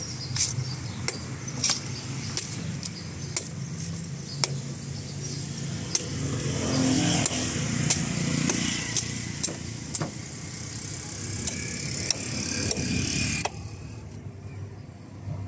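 Meat cleaver chopping into the husk of a young green coconut: a run of sharp, irregular chops, with steady street traffic running underneath.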